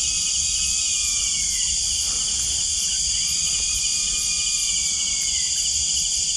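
Loud, steady night insect chorus of crickets, over which two long whistled calls sound, each held at one pitch and then dropping away at its end, the second starting about halfway through.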